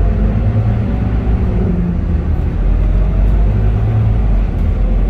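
Scania K230UB city bus's five-cylinder diesel engine and drivetrain running as the bus drives along, heard from inside the passenger cabin. It is a steady low drone whose pitch rises and falls slightly.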